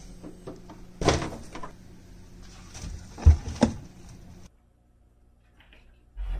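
Glass baking dish and bottles knocking inside an open refrigerator as the covered dish is slid onto a shelf: a rattle about a second in and a heavy clunk a little past three seconds, over a steady low hum. After a sudden drop to quiet, a door-latch knock sounds near the end.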